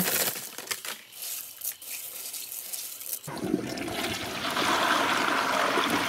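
Dry mini pretzel twists poured from a bag, pattering and clicking into a toilet bowl. About three seconds in, the toilet flushes with a steady rush of water.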